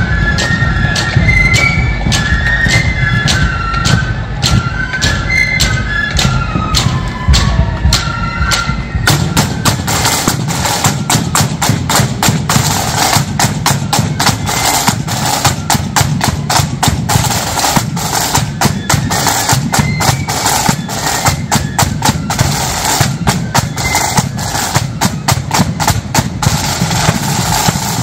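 Marching flute band playing: flutes carry a high melody over the drums, then about nine seconds in the flutes stop and the drums play on alone with fast, dense snare beating.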